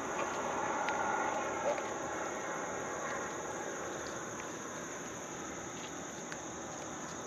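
A steady high-pitched insect drone, with a few soft knocks and a slight swell of murmuring noise in the first couple of seconds.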